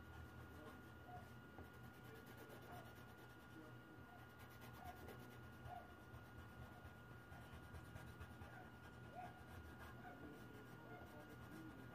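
Coloured pencil scratching faintly on paper as it shades, in many small strokes over a steady low hum.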